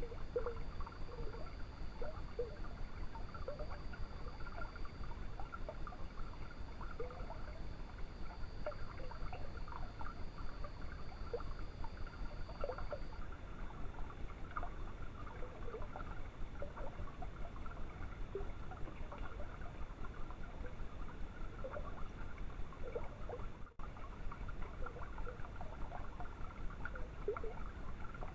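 Night forest ambience picked up by a trail camera: a steady low rush with many short scattered blips, like water trickling or small frogs calling. A faint steady high whine stops about halfway through.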